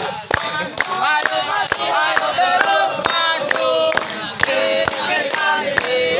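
A crowd singing together in unison, kept in time by rhythmic hand-clapping at about three claps a second.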